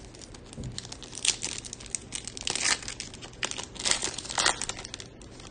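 Topps Chrome baseball card pack's foil wrapper being torn open and pulled apart by hand, in a run of short rustling bursts from about a second in until shortly before the end.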